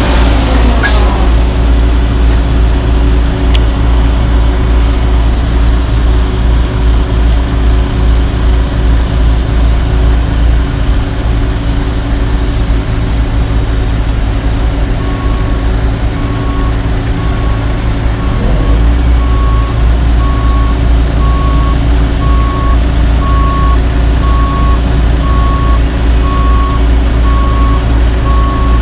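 Heavy diesel engines of a dump truck and an asphalt paver running steadily while the truck tips asphalt into the paver's hopper, the revs dropping in the first second. From about halfway through, a backup alarm beeps about once a second.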